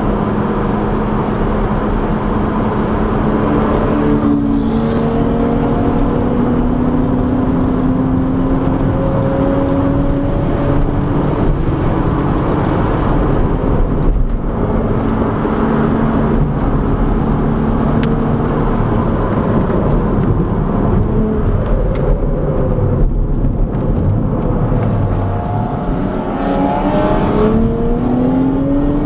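Turbocharged car engine heard from inside the cabin at track speed, running on low boost, its note climbing slowly as the car accelerates and rising again near the end, over steady wind and road noise.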